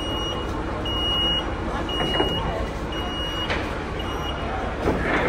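Warning beeper on a motorised ferry boarding gangway, sounding one high beep about once a second while the gangway is moved into place, stopping about three and a half seconds in. A couple of sharp knocks follow near the end over a steady low rumble.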